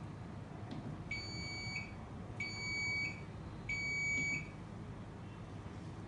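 Electronic beeper of a membrane control panel's gas alarm section sounding three high-pitched beeps, each about two-thirds of a second long and a little over a second apart, as its buttons are pressed.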